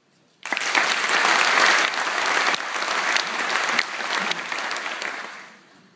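Audience applauding. It starts suddenly about half a second in and dies away near the end.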